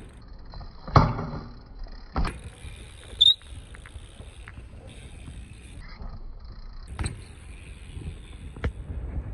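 BMX bike being ridden: rolling and wind noise broken by sharp knocks and impacts, the loudest about a second in, with others around two, three, seven and nine seconds in.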